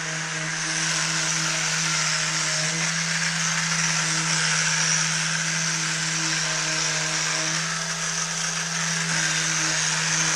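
Handheld power sander running steadily, sanding dried Bondo body filler: a constant hum under an even hiss.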